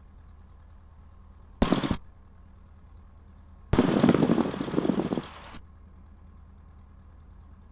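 Two sudden bursts of crackling static over the aircraft radio and intercom, a short one and then a longer one of about two seconds, each switching on and cutting off abruptly. Underneath is the low steady hum of the Cessna 150's engine at taxi power.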